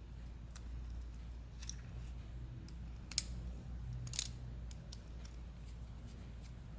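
Scattered small clicks of a screwdriver and a plastic male plug being handled as wires are fastened to its terminals, with two sharper clicks about three and four seconds in, over a low steady hum.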